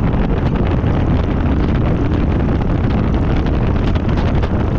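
Steady wind rushing over the microphone on a Harley-Davidson Fat Boy at road speed, with the motorcycle's V-twin engine running underneath.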